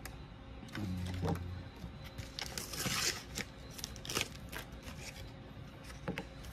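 Trading cards and their packaging being handled: rustling with scattered light clicks, busiest about halfway through. There is a short low hum about a second in.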